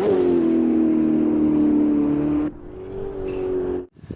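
Race car engine sound, a high steady engine note that slowly sinks in pitch, drops much quieter about two and a half seconds in and cuts off shortly before the end.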